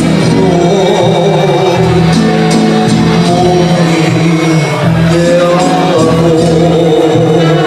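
Mariachi band playing live, a low bass line pulsing under sustained melody notes, with a voice singing over it.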